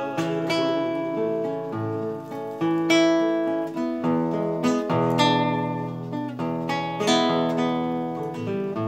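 Nylon-string classical guitar playing an instrumental passage without voice: a run of plucked and strummed chords and single notes, each left to ring out.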